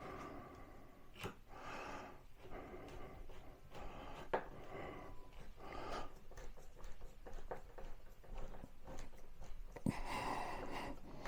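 Small screws being driven in by hand with a Pozidriv screwdriver: soft scraping and handling sounds with a few light clicks.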